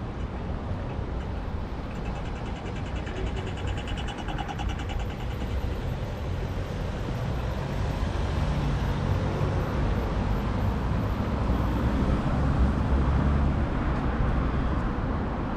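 City street traffic: vehicles running past with a steady rumble, growing louder and deeper in the second half as a heavier vehicle goes by. About two seconds in, a fast, even ticking runs for about three seconds.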